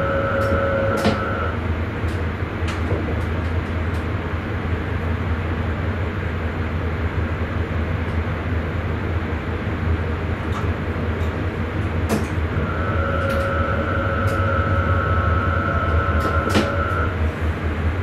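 Sprinter commuter train running along the line, heard from the driver's cab: a steady low rumble with sharp clicks here and there. A steady whine is heard at the start and again for about four seconds near the end.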